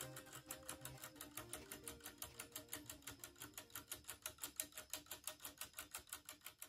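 3D-printed plastic three-axis tourbillon running, its escapement ticking quickly and evenly at about six ticks a second, over faint background music.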